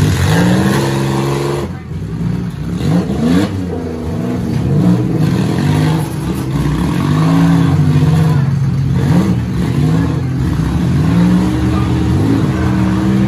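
Several demolition derby cars' engines running and revving up and down at once, their pitches rising and falling over one another as the cars push against each other.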